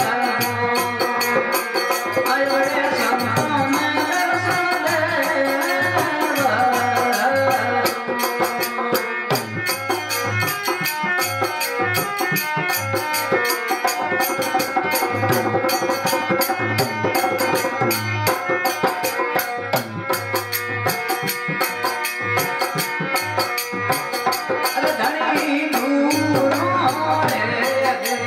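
Rajasthani devotional folk music: harmonium and tandura playing over percussion that keeps a steady, fast beat.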